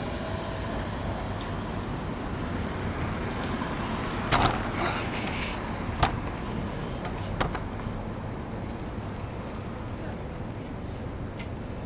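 Insects trilling: one steady, high, finely pulsing trill over a steady background hiss. A few sharp knocks between about four and seven and a half seconds in come from the camera being handled.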